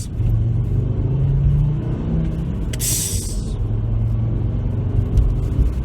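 Volkswagen Rabbit's engine running, heard from inside the cabin, with a short, sharp hiss about three seconds in: a man imitating a turbo blow-off valve's "psh" with his mouth. After the hiss the engine note sits lower.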